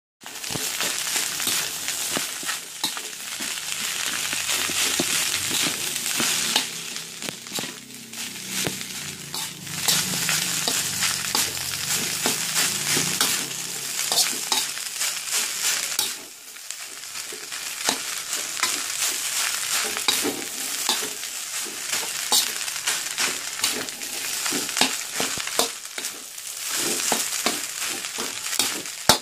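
Food frying in hot oil in a pan: a steady sizzle full of sharp crackling pops, easing briefly about halfway through.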